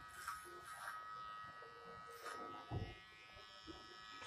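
Electric hair clippers buzzing steadily as they cut short hair up the back of the head, with a few brief scratchy bursts as the blade passes.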